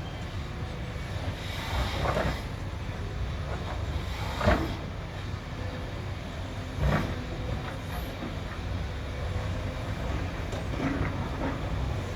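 Heavy diesel earthmoving machinery running with a steady low rumble, with a few sharp knocks, the loudest about halfway through.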